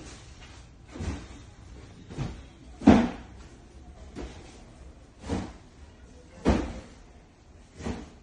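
A series of about seven dull knocks, irregularly spaced a second or so apart, the loudest about three seconds in, over a low steady background.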